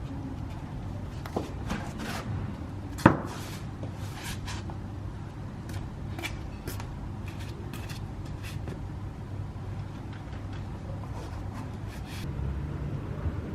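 Scattered clicks and knocks of household objects being handled, with one sharp knock about three seconds in, over a steady low hum.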